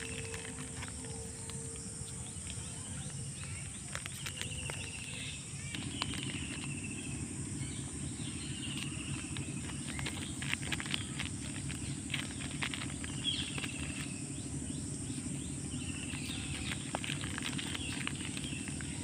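Outdoor ambience: a steady high insect drone, with a bird repeating a short falling call every second or two, and scattered crackly clicks. A low steady hum joins about six seconds in.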